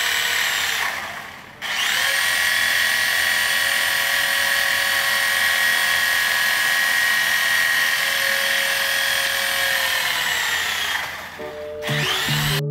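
Small RC helicopter's electric motors and coaxial rotors whirring with a steady high whine. The throttle drops about a second in and comes back up with a rising whine, then winds down near the end as music comes in.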